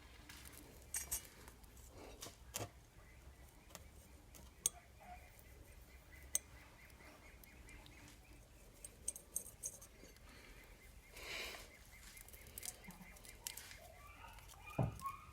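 Faint, scattered clicks and clinks of small metal tools and parts being handled, with a short rustle about eleven seconds in and a cluster of louder knocks near the end.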